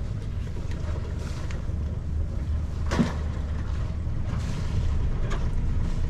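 Yacht's inboard engine running steadily at low revs as the boat motors slowly, a low drone with wind on the microphone. A single sharp knock sounds about three seconds in.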